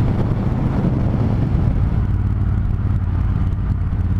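Triumph Thunderbird Storm's parallel-twin engine running at a steady cruise, with wind noise on the microphone that eases about halfway through.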